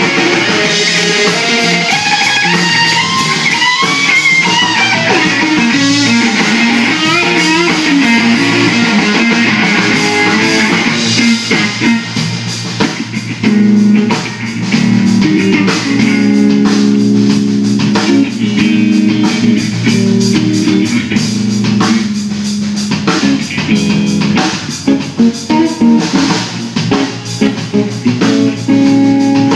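Blues trio playing live: electric lead guitar soloing with bent, gliding notes over bass guitar and drum kit. About halfway through, the guitar moves to held lower notes and the drums hit harder and more often.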